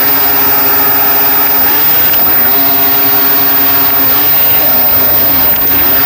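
Remote-control toy speedboat's small electric motor running with a steady pitched drone that dips briefly in pitch twice, about two seconds in and again near the end.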